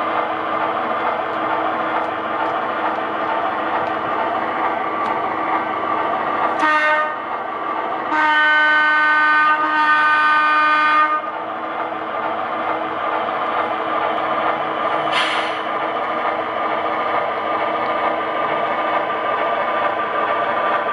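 Sound-equipped HO scale model diesel locomotive (DCC sound decoder) running steadily as it pulls freight cars along the track, with its horn sounding a short toot, then two longer blasts back to back, then another short toot.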